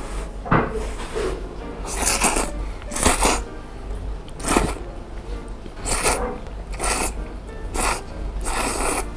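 A man slurping thick Yoshida udon noodles out of hot broth: about eight short slurps at irregular intervals, each under a second.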